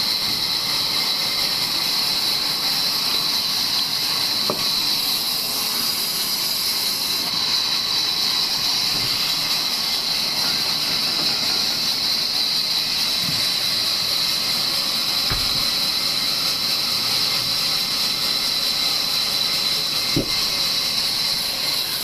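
Large vertical band saw ripping lengthwise through a log: a steady, high-pitched hiss of the blade cutting the wood over the saw's motor. A couple of light knocks in the second half.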